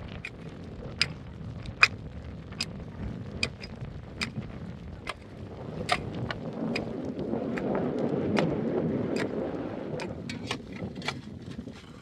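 Short-handled hand hoe chopping into dry, stony soil: sharp strikes at roughly one a second. A rushing noise swells up in the middle and dies away.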